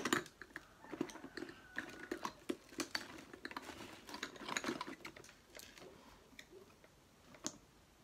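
Irregular light clicks and taps of small makeup containers being picked up and handled on a table, thinning out near the end.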